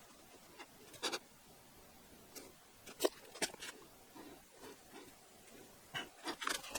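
Scattered light knocks and clicks, with a quick cluster of them near the end: PPR plastic pipes and fittings being handled.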